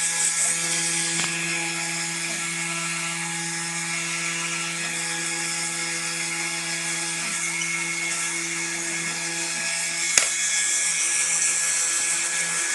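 Small desktop CNC engraver's spindle motor running with a steady high whine as its engraving bit mills traces into a copper-clad circuit board. A single sharp click about ten seconds in.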